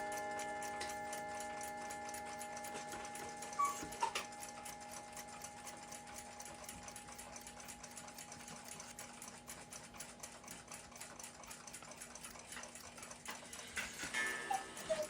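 Faint, fast, even mechanical ticking like a clock running, under a few held tones that fade away over the first few seconds. Light metal clicks come about four seconds in and again near the end.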